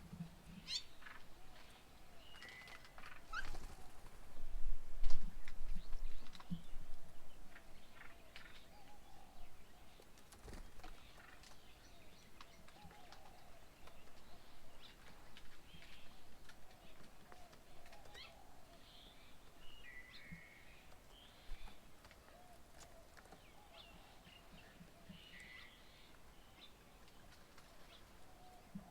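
Small birds chirping and calling on and around a garden bird table, short scattered calls through the whole stretch. A low rumble, louder than the birds, comes between about four and seven seconds in.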